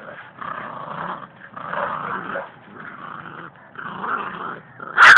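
Puppies growling in short rough bouts as they play-fight, with a sudden loud burst of sound near the end.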